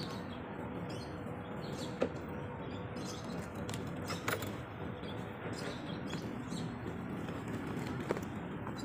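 Steady outdoor background noise with three short sharp clicks, about two, four and eight seconds in.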